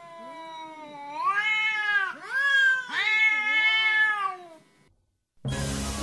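Domestic cat meowing: one long falling meow, then three drawn-out meows that rise and fall, dying away about four and a half seconds in. Music starts near the end.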